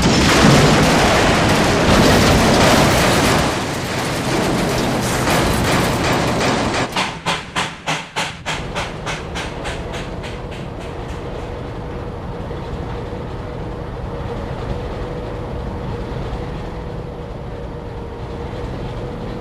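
Steam locomotive sound effects: a loud rush of steam and running noise, then about seven seconds in a quick run of chuffs, about four a second, that fades out, leaving a steady quieter rumble.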